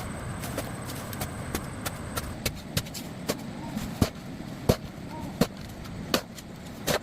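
Sharp knocks of a hand tool striking wood or bamboo, scattered and lighter at first, then harder at about one blow every 0.7 seconds in the second half.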